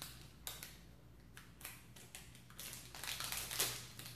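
Plastic Quest Bar wrapper crinkling in the hands: a few short rustles, then a denser, louder crinkling near the end.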